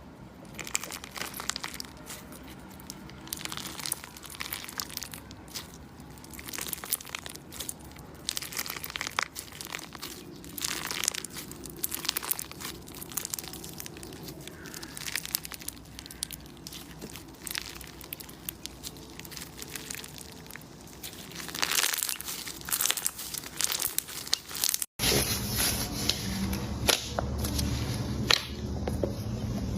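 Slime being squeezed and poked, giving a dense run of small crinkly crackles and pops. About 25 s in it cuts abruptly to a louder take of the same kind of handling.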